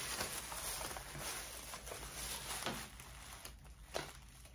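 Soft rustling and handling noise, with a couple of light taps near the end.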